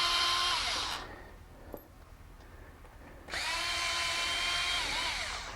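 Electric power driver whirring as it spins out the bolts of a Harley-Davidson primary chain cover. It runs twice: one run winds down about a second in, and a second starts after a pause and slows to a stop near the end.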